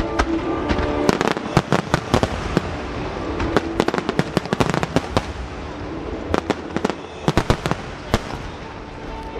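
A barrage of aerial firework shells launched and bursting in quick succession, with dozens of sharp bangs and cracks. The bangs come thickest in the first half, then in a second burst of shots near the end, with faint music underneath.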